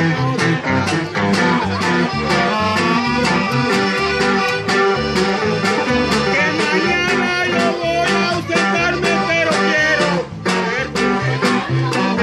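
Live band playing an upbeat tune on accordion, acoustic guitar, upright bass and drum kit, with a steady beat.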